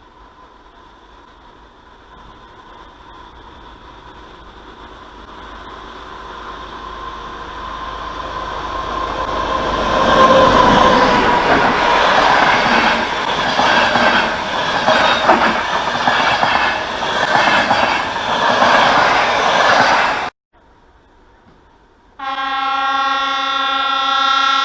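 A train approaching and passing close by, growing steadily louder over about ten seconds into a loud rumble with wheel clatter, then cutting off suddenly. After a brief lull, a steady train horn blast sounds near the end.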